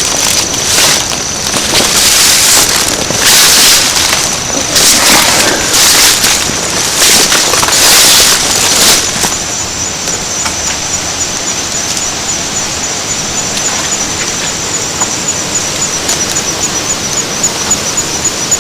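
Heavily amplified woodland recording: a run of loud rustling bursts, about one a second, through the first nine seconds, then a steady hiss with a faint high chirp repeating about twice a second.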